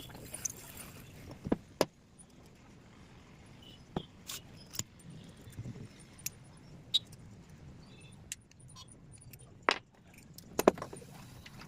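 Small metal parts clicking and clinking as they are handled: scattered sharp clicks a second or two apart, loudest near the end.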